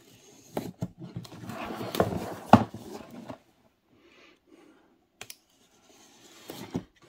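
Hobby knife slicing along the lid seam of a cardboard box to cut it open, with the box being handled: scratchy rasps and sharp clicks, busiest in the first half, then a few separate clicks near the end.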